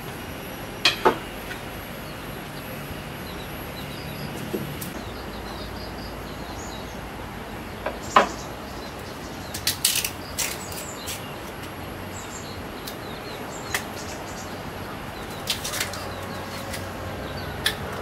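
Large knife cutting and peeling fresh bamboo shoots on a wooden table: a few short, sharp knocks and clicks, scattered and irregular, over a steady background hiss.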